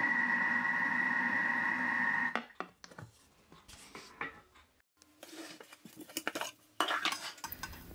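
Kitchen robot's motor kneading dough: a steady whirring hum that stops abruptly about two seconds in. It is followed by scattered clicks and plastic-and-metal clatter as the machine's lid is unlocked and lifted off.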